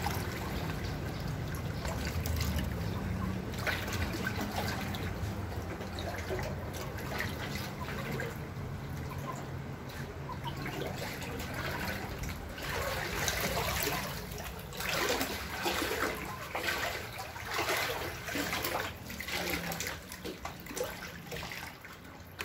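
Floodwater trickling and running inside a flooded house, a continuous watery noise that grows louder and more uneven in the second half.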